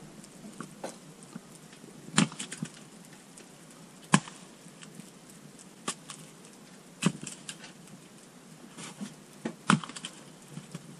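A small axe splitting short firewood rounds: five sharp chops at irregular intervals, a second and a half to two and a half seconds apart, with lighter knocks of wood between them.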